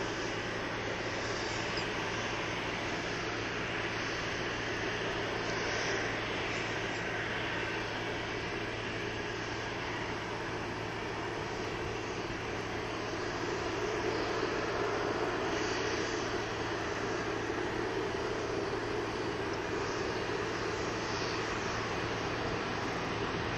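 Boeing 747-200's four turbofan engines running steadily at low thrust as the jet taxis, swelling slightly about halfway through.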